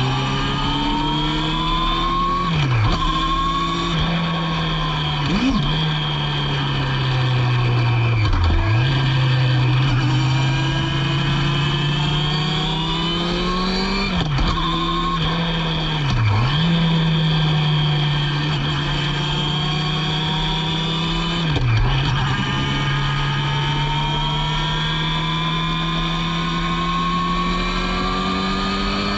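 A Formula Gloria single-seater's 1000 cc Yamaha motorcycle engine at racing speed, heard onboard. The engine note climbs steadily and drops away sharply about six times at gear changes and lifts, with steady tyre and wind noise underneath.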